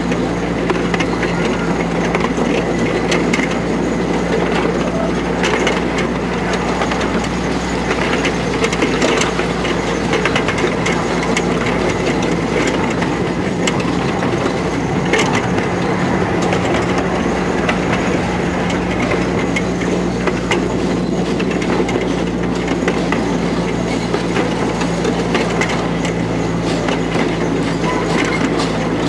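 Running sound of a 15-inch gauge miniature railway heard from a carriage: a steady rumble and rattle of the wheels on the track, with a low hum and scattered clicks over the rail joints.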